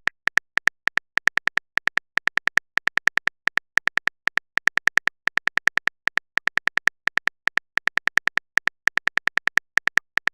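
Typing sound effect of a phone keyboard: short, identical ticks of one pitch in quick, uneven runs of several per second.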